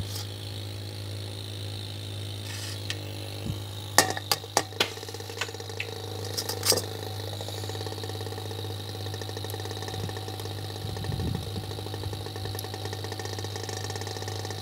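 Foot-controlled engraver handpiece with a newly fitted piston, running with a steady mechanical buzz as the piston hammers rapidly. A few sharp clicks come about four to five seconds in and again near seven seconds.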